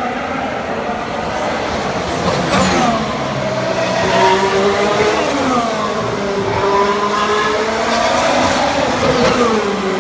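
Formula One cars' V6 turbo-hybrid engines passing at speed one after another. The engine note rises and then falls away as each car goes by, several times over, with a steady engine drone underneath.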